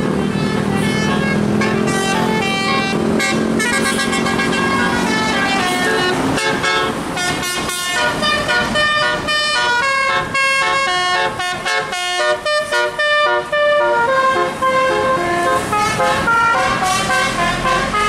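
Tour buses' musical multi-trumpet air horns ("telolet" horns) playing quick melodies, the notes stepping up and down several times a second, over a bus's diesel engine running. The engine is plain in the first few seconds, and from about six seconds in the horn melody takes over.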